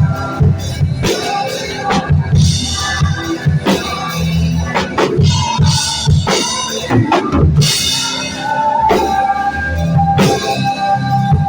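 A drum kit playing along with a worship band, with kick drum and snare hits and cymbal crashes over a held keyboard or guitar tone.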